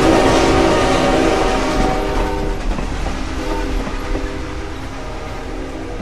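A group of trains running on the track, with train horns sounding as held chords near the start and again from about halfway. Everything fades away gradually.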